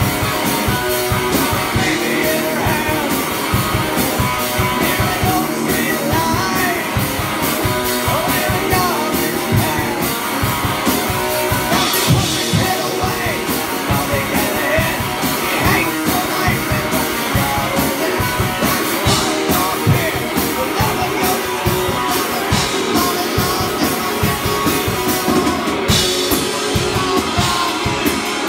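Live rock band playing loudly: electric guitar over a drum kit keeping a steady beat.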